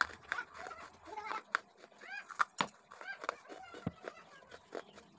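Close-miked chewing of chunks of baked red clay, with sharp, irregular crunches. A few short clucking calls, like a hen's, sound in the background, about two and three seconds in.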